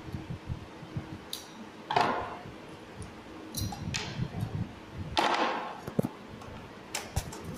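Handling noise as a metal projector ceiling-mount bracket is fitted to the underside of the projector: scattered sharp clicks and clinks of metal parts, with two brief louder rustling scrapes about two and five seconds in.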